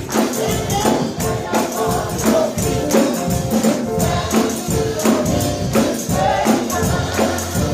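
Gospel music: a choir singing over a steady, rhythmic percussion beat.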